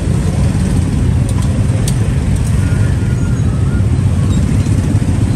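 Street traffic: a loud, steady low rumble of passing road vehicles, with a few faint clicks on top.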